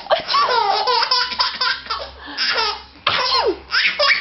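Seven-month-old baby laughing in repeated bursts, set off by its mother's sneezes.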